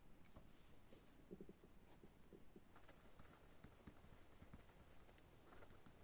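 Very faint pen on paper: light scratching and small ticks as a pen moves over a test book's pages, thickening into writing strokes from about three seconds in.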